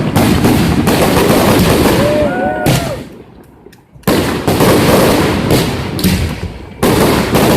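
Fireworks going off in a dense barrage of bangs and crackle, dropping away for about a second near the middle before resuming.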